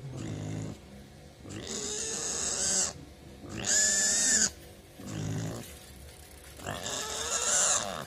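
Piglet squealing while held down for castration: three long, high-pitched squeals, the loudest in the middle, with short low grunts between them.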